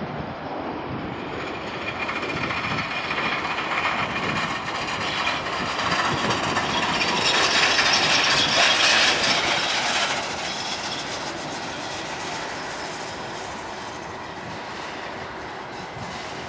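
A Boeing 777's twin turbofan engines running at taxi power as the jet rolls past: a rumble with a high whine that swells to its loudest about eight to nine seconds in, then fades as it moves away.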